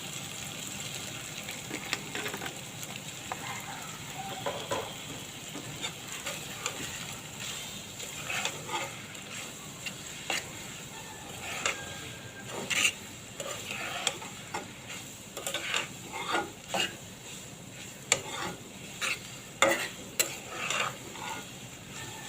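Egg noodles frying and sizzling in a pan with a steady hiss, while a utensil stirs and scrapes against the pan in irregular clicks that come thicker after the first several seconds.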